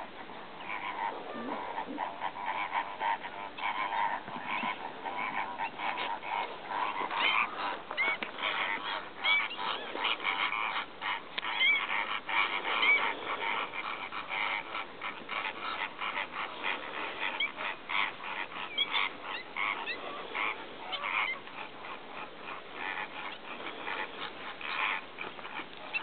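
A flock of greater flamingos calling: a continuous chatter of many short, overlapping goose-like honks.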